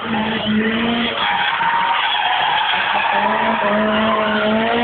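A Nissan Silvia S14 drifting: its tyres squeal and skid continuously while the engine is held at steady high revs, climbing slightly in the second half.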